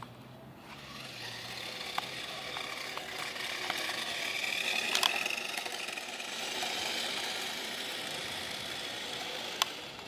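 Toy remote-control car's small electric motor whining as the car drives, growing louder toward the middle with a rising whine, then easing off. A few sharp clicks are heard.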